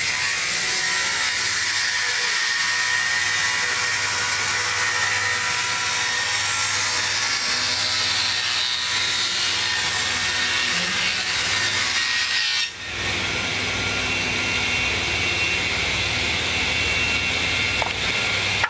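Multi-blade rip saw running and ripping a board of green timber: a steady hum and high whine from the spinning blades under the hiss of the cut. In the middle a high tone sinks slowly over several seconds, and the sound dips briefly about two-thirds of the way through.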